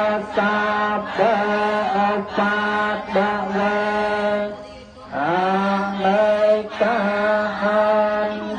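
Theravada Buddhist chanting recited on one steady pitch, breaking briefly about four and a half seconds in and then resuming.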